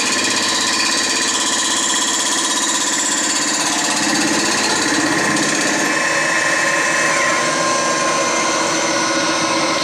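Boring/milling machine's face-milling cutter taking a resurfacing pass across the deck of a cast-iron Ford Model A cylinder head: a loud, steady rapid chatter of the cut over the steady tones of the machine's drive. One of the tones drops slightly in pitch about seven seconds in.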